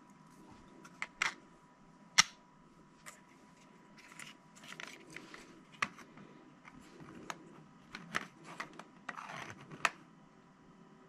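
Sharp plastic clicks and light handling rustle as the 3D-printed PLA shell pieces of a model are turned and snapped into place, the pieces held by magnets. There are about half a dozen clicks, scattered irregularly; the loudest come about a second in, about two seconds in and near the end.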